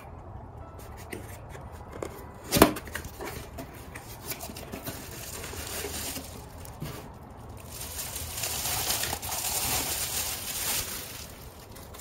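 Cardboard box and bubble wrap being handled as a glass is unpacked: one sharp knock about two and a half seconds in, then plastic bubble wrap rustling and crinkling, loudest in the last few seconds.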